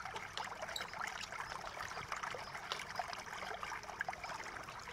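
Faint small clicks and scrapes of a screwdriver working heatsink screws on a laptop motherboard, over a steady background hiss.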